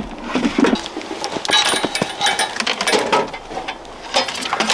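Irregular clicks, knocks and rattling, as of equipment being handled and connected.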